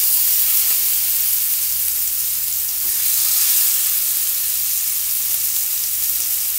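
Masala-coated sardines shallow-frying in hot oil in a nonstick pan: a steady hissing sizzle, strongest at the start as the last fish goes into the oil.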